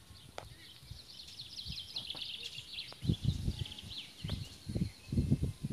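Small birds chirping, with a quick twittering trill in the first half. From about three seconds in, irregular low thuds and rustles come in and are louder than the birds.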